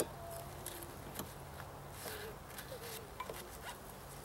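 Honey bees buzzing around an opened bee package, single bees droning past with short rising and falling tones. Scattered sharp clicks and knocks come from the package's syrup feeder can being worked out of the box.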